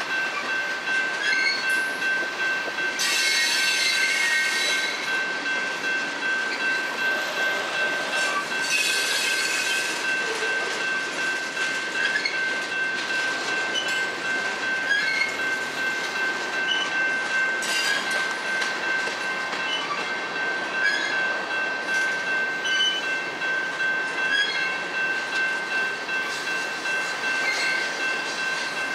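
Freight cars of a long manifest train rolling past: a steady rush of steel wheels on rail with scattered clicks and a constant high-pitched wheel squeal, and two stretches of harsher hissing noise about three and nine seconds in.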